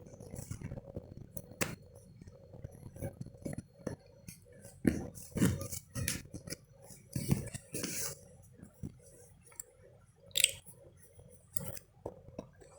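Hands handling a phone's cardboard retail box and its packaging: scattered soft taps, clicks and short rustles, a little louder around five, eight and ten seconds in.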